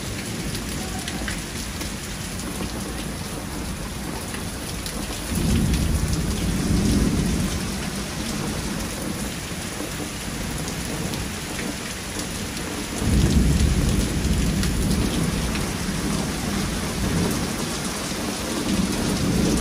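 Heavy rain falling in a steady hiss during a thunderstorm, with thunder rumbling: two loud low rolls about five and thirteen seconds in, and a weaker one near the end.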